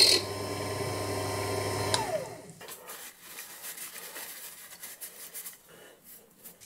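A Proxxon drill's motor running with a steady hum, turning a Starrett diamond core drill in wet granite; it is switched off about two seconds in, and its pitch falls as it winds down. After that come soft rustles and light knocks as the granite slurry is wiped up with a paper towel.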